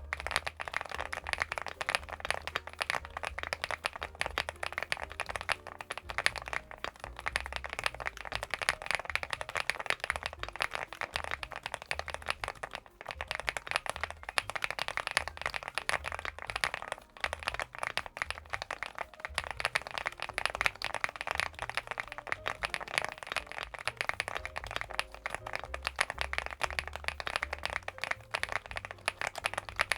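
Fast continuous typing on a CIDOO V75 Plus gasket-mounted mechanical keyboard: a dense, unbroken stream of keystroke clacks.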